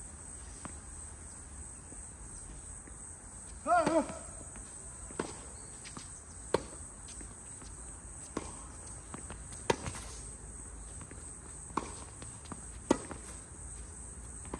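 Tennis rally: a ball struck by rackets and bouncing on the court, sharp pops about every one to two seconds, with a brief shout about four seconds in. A steady high insect drone runs underneath.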